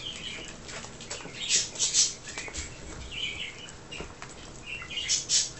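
A litter of whippet puppies nursing: short bursts of suckling and shuffling noise, the strongest about a second and a half, two seconds and five seconds in, with a few faint high squeaks between them.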